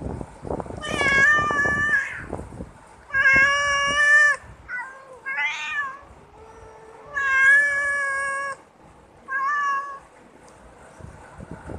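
Cats meowing: about six separate meows, several long and drawn out, with a rough crackling noise under the first call.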